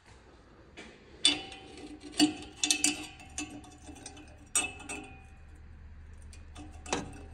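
Sharp metallic clinks and taps, several spread over a few seconds, each with a brief ring: a cut-down steel exhaust clamp being handled and fitted against the exhaust pipe.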